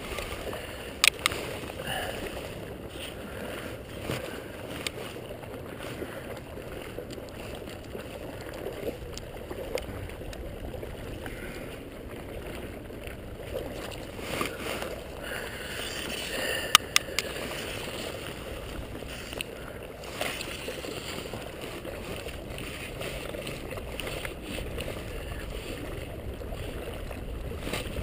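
River water sloshing and gurgling around a wading angler, close to the water surface. Two pairs of sharp clicks stand out, about a second in and around seventeen seconds.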